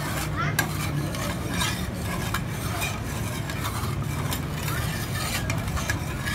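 Two metal spatulas scraping and tapping across the frozen steel pan of a rolled-ice-cream cold plate, spreading the freezing ice cream mix into a thin sheet, in quick irregular strokes. A low steady hum runs underneath.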